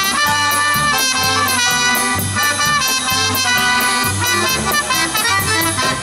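Polka band playing live: trumpet carrying the melody over accordion and a drum kit keeping a steady beat.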